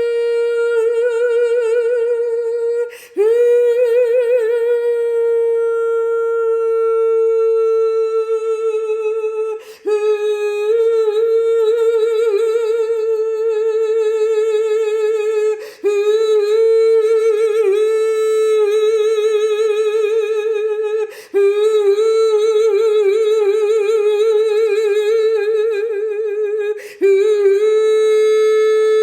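A woman's unaccompanied wordless vocal toning for sound healing: long notes held on a steady pitch with a slight waver. The notes break for a quick breath about every five to six seconds.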